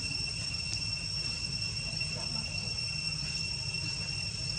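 Insects shrilling outdoors in one steady, unbroken high tone, with a low rumble underneath.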